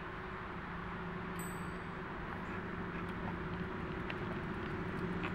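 SM42 diesel shunting locomotive's engine running with a steady low hum, growing gradually louder as the locomotive approaches.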